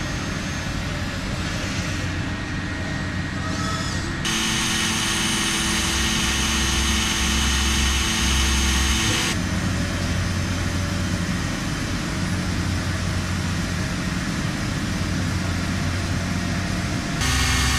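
WFL M60 turn-mill machine machining a steel crankshaft under coolant spray: a steady machine noise with several held whining tones over a hiss. The mix changes abruptly about four seconds in, again around nine seconds, and just before the end.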